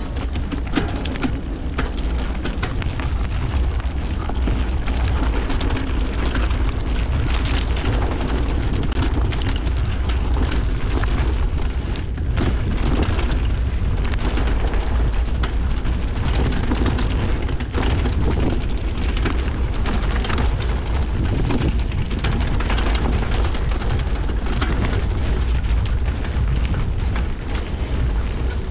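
Wind rumbling on the microphone of a bike moving fast down a dirt singletrack, with tyre noise and frequent small rattles and knocks from the bike over bumps.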